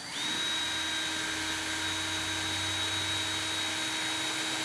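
Cordless drill spinning up and running steadily with a 7/16-inch bit, drilling out a bolt hole to enlarge it for larger bolts.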